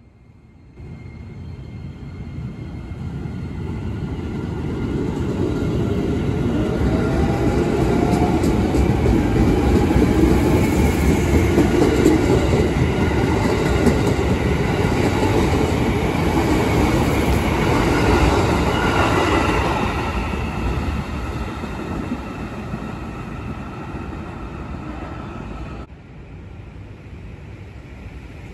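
An electric commuter train (KRL Commuter Line multiple unit) running in along the platform close by, its wheels and cars rumbling on the rails. The sound swells over several seconds, holds, then fades, and drops suddenly to a quieter, distant rumble near the end.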